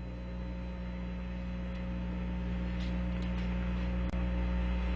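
Steady low electrical hum with hiss on the old mission radio audio between transmissions. A faint click comes about four seconds in.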